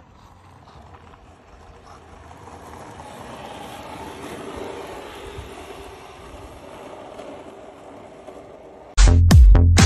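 Steady wind-like rushing noise of an outdoor recording, slowly growing louder. About nine seconds in, loud electronic dance music with a pounding beat of about three strokes a second cuts in.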